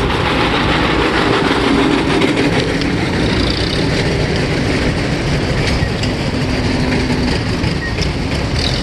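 Tractor engines running close by, a loud, steady mechanical noise that holds the whole time.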